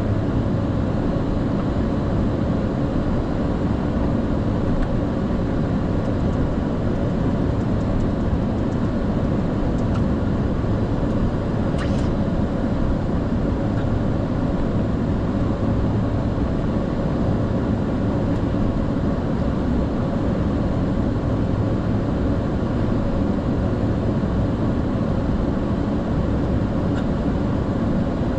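Steady flight-deck noise inside a Boeing 747-400 freighter: an even low rumble with air hiss and a faint hum, unchanging throughout.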